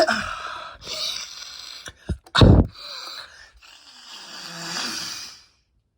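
A person with a congested, stuffy nose sniffing and snorting: several short breathy sniffs, a louder snort about two and a half seconds in, and a longer drawn breath near the end.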